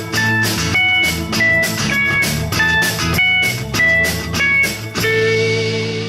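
Instrumental band music with guitar and drum kit playing a steady beat, which ends about five seconds in on a long held chord.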